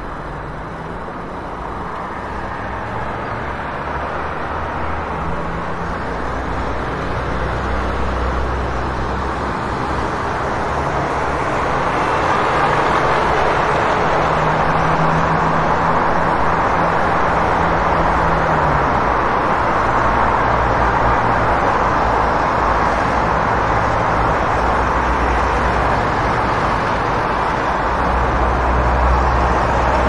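City street traffic: a steady wash of car engines and tyre noise, growing louder over the first dozen seconds and then holding steady, with a low engine hum underneath that drops in pitch about two-thirds of the way through.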